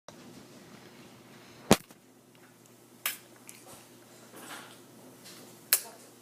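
A baby making sharp mouth clicks or pops, three in all, the loudest about two seconds in and the last near the end, with a soft breathy sound in between.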